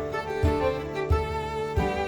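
Background instrumental music: a bowed string melody over a steady low beat.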